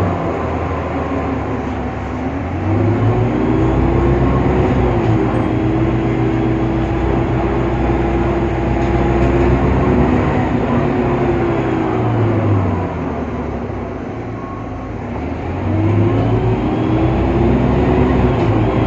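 Irisbus Citelis CNG city bus running, its Cursor 8 gas engine and ZF Ecomat automatic gearbox giving off a whining tone that rises and falls with speed. The whine and the engine noise drop away about twelve seconds in and climb again about three seconds later.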